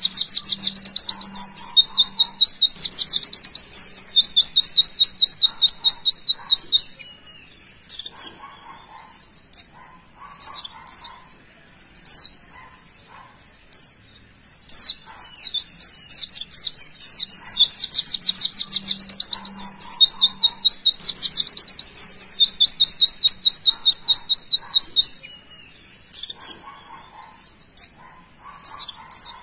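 A white-eye (pleci) singing its rapid 'tembakan' song: long runs of fast, high repeated notes lasting several seconds, broken by short sharp chirps. The same run of song comes round again about halfway through.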